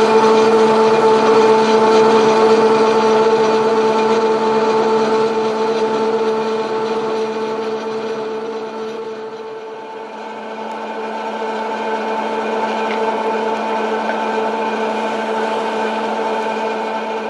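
Chairlift station machinery running: a steady mechanical hum made of several held tones, growing quieter about halfway through and coming back.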